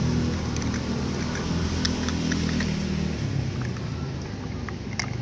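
A steady engine drone running in the background, with light plastic clicks and taps as toy cars are lifted off a toy car-carrier trailer.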